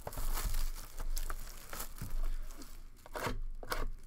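Plastic shrink-wrap being torn and crumpled off a sealed trading-card hobby box, in a series of irregular crinkling bursts.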